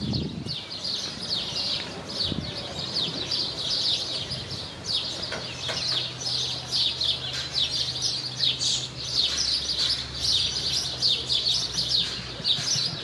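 Many small birds chirping, a dense, unbroken chorus of short, high, falling chirps, with a faint low steady hum underneath for several seconds in the middle.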